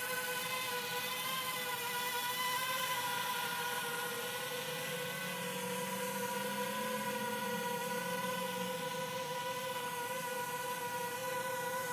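JME quadcopter drone's propellers whining steadily as the drone flies an automatic orbit, a high whine with evenly spaced overtones that wavers slightly in pitch.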